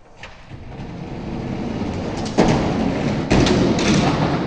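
Die-cast Hot Wheels monster trucks rolling down a plastic drag-race track, a rumble that grows louder, then three loud clattering knocks in the second half as they reach the bottom.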